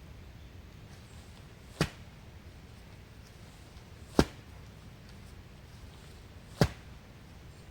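Wood being chopped: three sharp strokes, evenly spaced about two and a half seconds apart, over a low steady background.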